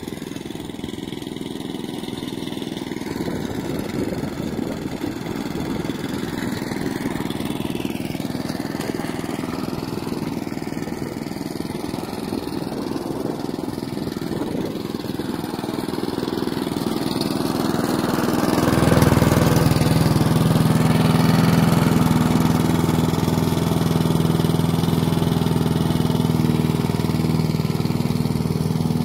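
Gas push mower engine running steadily while the mower is towed over grass; it grows louder and clearer about two-thirds of the way in.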